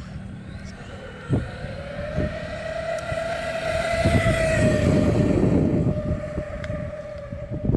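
Redcat Vigilante RC monster truck's electric motor whining under full throttle on a speed pass, its pitch climbing gradually to a peak about four seconds in, then easing off. Heavy wind noise buffets the microphone.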